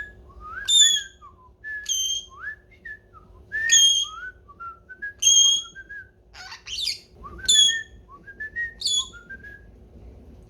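Pionus parrot calling: a string of short, sharp high chirps about every second or so, with softer whistled glides rising and falling between them.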